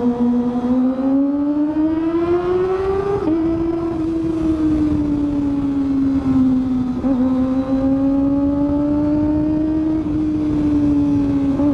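Kawasaki ZX-25R's 249 cc inline-four engine, breathing through a Villain aftermarket exhaust, running at high revs under way. The engine note climbs over the first three seconds, then eases off and holds fairly steady, with brief hitches around three and seven seconds in.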